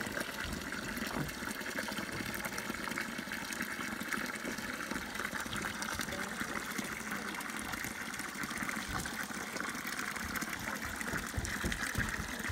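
A stream of water falling from a pipe into a stone trough, splashing steadily without a break.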